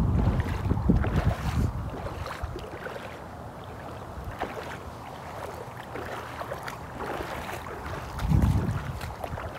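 Wind buffeting the microphone in heavy gusts, strongest at the start and again about eight seconds in, over the faint slosh and splash of feet wading through shallow floodwater.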